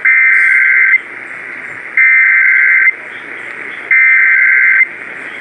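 NOAA Weather Radio Emergency Alert System SAME header: three bursts of digital data tones, each about a second long with about a second's gap between them, over radio hiss.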